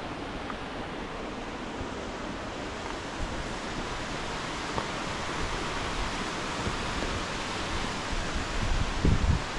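Steady rushing water, an even hiss that grows a little stronger toward the end. Near the end, wind buffets the microphone in a few low gusts.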